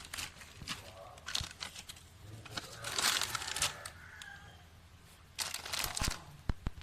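Plastic parcel packaging crinkling and tearing in irregular handling noises as a delivery is opened, quieter for a moment about four seconds in before louder crackling resumes.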